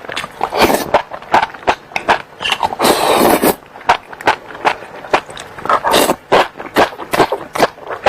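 Close-miked chewing of spicy enoki mushrooms: quick, irregular wet mouth clicks and smacks, with one longer slurp about three seconds in.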